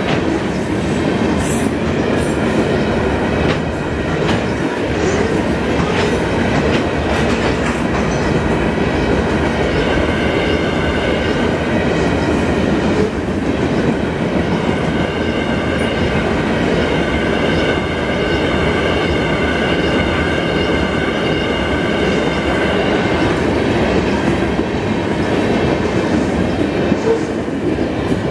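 Freight cars of a long train, covered hoppers and then centerbeam flatcars, rolling past: a steady loud rumble of steel wheels on rail with clickety-clack over the joints. A steady high metallic squeal from the wheels joins in about ten seconds in.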